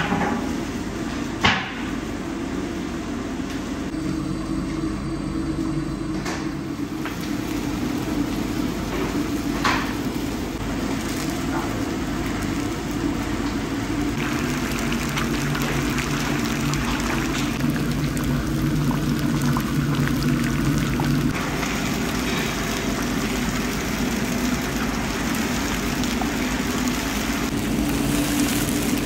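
Food frying in deep, foaming oil in a large cast-iron kazan, a steady sizzle and bubbling that grows brighter about halfway through, over a low steady hum. Two sharp clicks, the loudest near the start, as the skimmer knocks against the pot.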